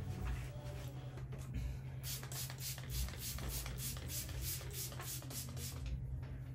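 A brush worked quickly in short, even strokes, about four a second, starting about two seconds in and stopping near the end, over a steady low hum; soft rustling comes before it.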